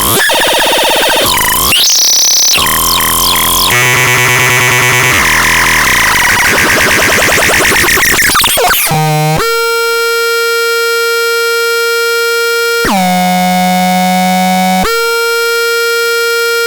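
SMRŤON electronic synthesizer producing harsh, glitchy, shifting tones and noise, then, about nine seconds in, a steady buzzy drone that jumps abruptly to a lower note and back a couple of times.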